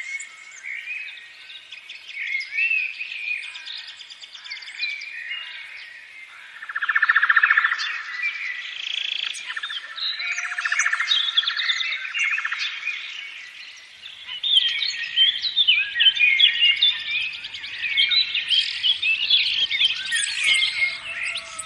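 Several songbirds singing and chirping at once, many overlapping calls and whistles, with a rapid trill about 7 seconds in and another near the middle.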